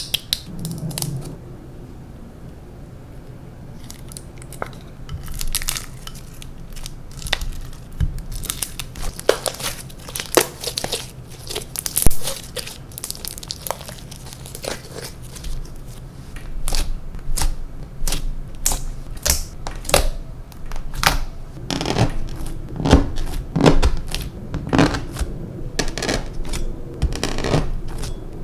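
Hands kneading and stretching clear slime as makeup is mixed in. The slime makes irregular sticky pops and crackles, more frequent and louder in the second half.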